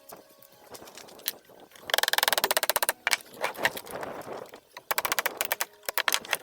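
Hand tools working on the metal parts of an antique hit-and-miss engine's governor and push rod linkage: sharp metallic clicks and clinks, with a fast rattling run of clicks about two seconds in and another quick run near the end.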